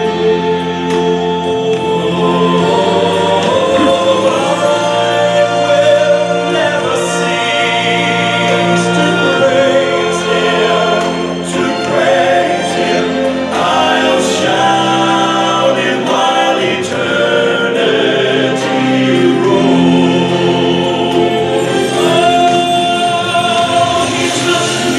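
A choir singing a hymn with sustained instrumental accompaniment.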